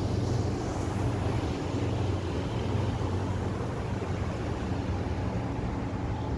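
Steady low drone of a passing ship's engine: a deep, unchanging hum with a faint higher tone over a constant hiss.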